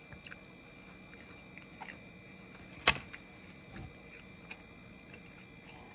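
Mouth sounds of someone chewing a bite of soft blueberry muffin: small scattered clicks and smacks, with one sharper click about three seconds in. A faint steady high tone runs underneath.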